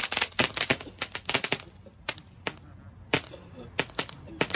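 Pyro Predator 'Laser Lights' ground fountain firework throwing sparks and going off in rapid, irregular sharp cracks. The cracks thin out for about a second in the middle, then pick up again.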